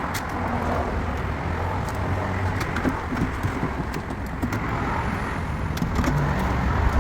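A steady low rumble of vehicle and traffic noise, with scattered small clicks and knocks as a door latch and lock actuator assembly is handled and fitted back into a car door.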